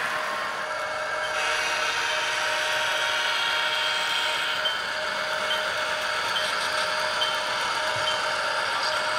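HO-scale model train running on the layout: a steady mechanical hum with light clicks coming a little more than once a second from about halfway in.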